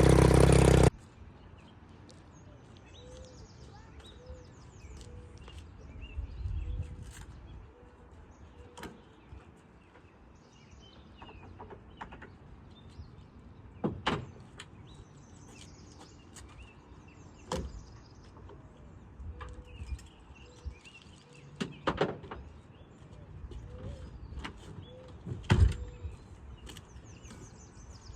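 Outboard motor running, cutting off abruptly about a second in. After that a quiet stretch with faint bird chirps and scattered knocks and clunks.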